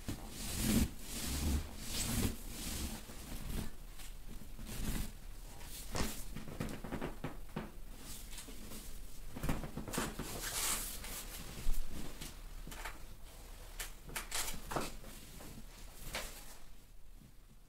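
Hands rubbing and pressing on skin and clothing during a dry massage, with irregular rustles and soft knocks against the padded table. The sound fades out near the end.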